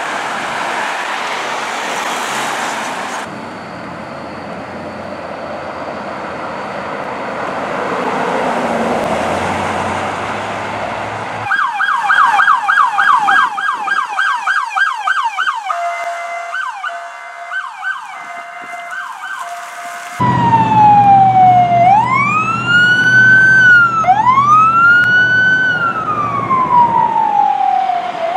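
Fire truck sirens and road noise: a stretch of passing traffic and engine noise, then a fast yelping siren coming in abruptly about 11 seconds in, switching to a slow rising-and-falling wail over the truck's engine rumble for the last third.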